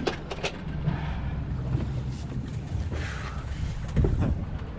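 Fishing boat's engines running in a steady low rumble, with wind on the microphone and water hiss. A few sharp clicks near the start and a short thump about four seconds in.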